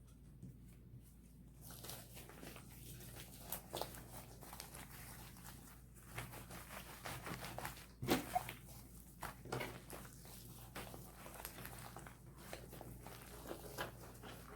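Hands squishing and kneading soft slime, a run of small irregular crackles and clicks with a few louder ones.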